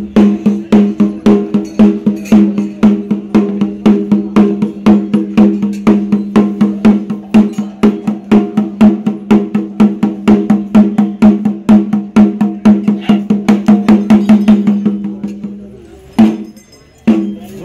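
Drums beaten in a fast, even rhythm of about four strokes a second, each stroke ringing with a low tone. The beating stops about sixteen seconds in, followed by two single strokes.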